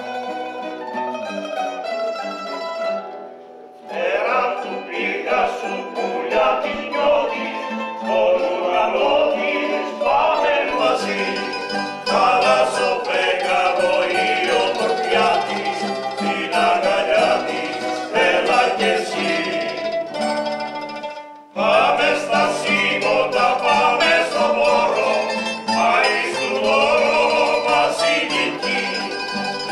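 Ionian kantada: a small group of men singing in harmony to mandolin and guitar accompaniment. The strings play alone at first; the voices come in about four seconds in, break off briefly a little past the middle, then carry on.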